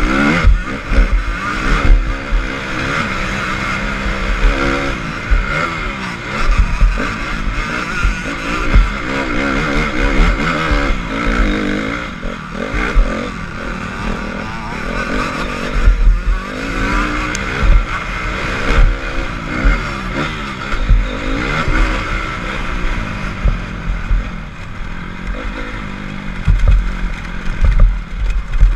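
Honda CRF250 dirt bike's four-stroke single-cylinder engine heard from on the bike, running hard under changing throttle, its pitch rising and falling with each shift and roll-off. Frequent low thumps mix in with the engine.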